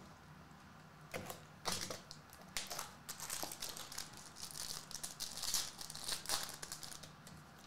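Foil trading-card pack wrapper crinkling as it is torn open by hand, in irregular crackles.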